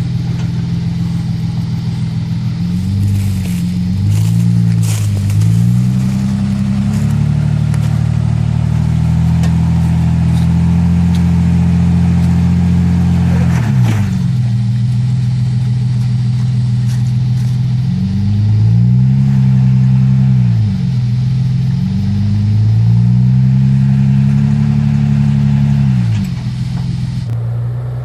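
Nissan Patrol's TB48 straight-six petrol engine revving up and down repeatedly, held at higher revs for several seconds in the middle, with a sharp knock about fourteen seconds in.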